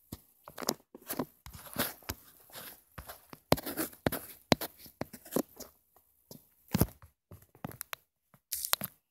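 Irregular taps, scrapes and rustles of a phone being handled close to its microphone while a finger draws on the touchscreen, with a few sharper knocks.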